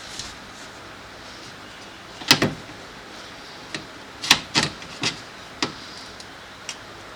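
A string of sharp clicks and knocks from parts being handled and fitted inside a car door, about eight in all, the loudest a little over two seconds in and again past four seconds.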